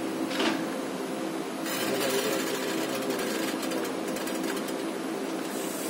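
Passenger train coaches running slowly over the rails: a steady mechanical hum with rattling and wheel clatter, turning hissier with many quick ticks about two seconds in.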